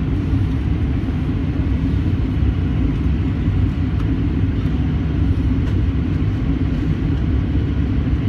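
Steady low cabin drone of an airliner in cruise flight: engine and airflow noise heard from inside the cabin at a window seat, even in level throughout.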